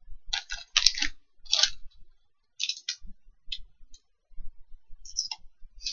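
Snack wrappers crinkling and rustling in a series of short, scattered crackles as packaged snacks are handled.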